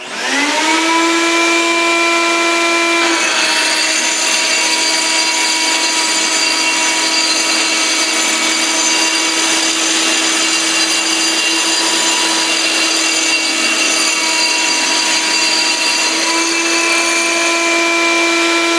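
Handheld concrete floor grinder and shop vac switched on together, the grinder's motor whining up to speed. About three seconds in, the whine drops a little and a harsh grinding hiss builds as the disc works the concrete floor through a homemade bucket dust hood. Near the end the whine rises again as the load comes off.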